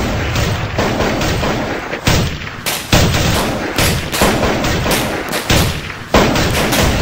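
A Glock pistol fired in a string of sharp shots at an uneven pace during a practical-shooting course of fire.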